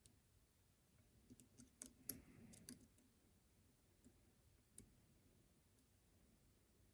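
Faint, scattered metallic clicks of a lock pick working the pins inside a pin-tumbler challenge lock, with a quick cluster of clicks and a brief scrape about two seconds in.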